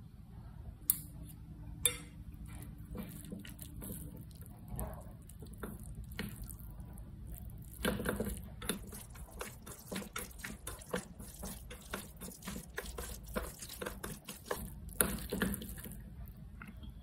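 Wooden chopsticks stirring and tossing sauce-coated instant noodles in a stainless steel bowl: wet slapping of the noodles and quick clicks of the chopsticks against the metal, busiest from about eight seconds in. Two sharp clicks sound in the first two seconds.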